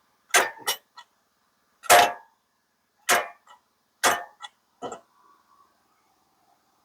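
A series of about eight sharp knocks and clanks, irregularly spaced over about five seconds, the loudest about two seconds in.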